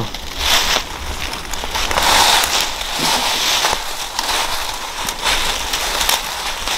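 Footsteps crunching and shuffling through dry fallen leaves, with twigs and brush crackling as they are pushed past.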